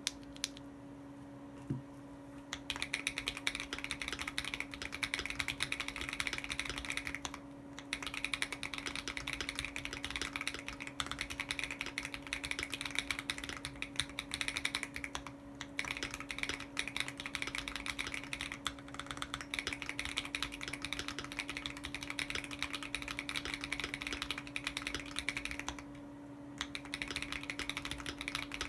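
Fast typing on a modded Keychron Q1 aluminium mechanical keyboard with a polycarbonate plate, lubed and filmed Akko CS Ocean Blue switches and PBT keycaps, heard through an iPhone microphone. The keystrokes start about two and a half seconds in and run in quick streams with a few short pauses.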